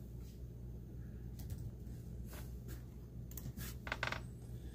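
Scattered light clicks of typing, a handful spread out and then a quick run of them about four seconds in, over a steady low hum.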